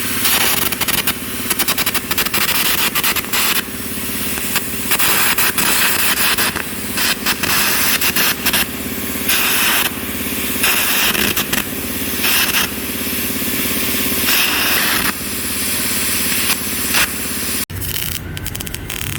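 Metalwork on a hydraulic breaker's steel housing, likely arc welding. Bursts of crackling hiss start and stop every second or so over a steady machine hum, and the sound changes abruptly near the end.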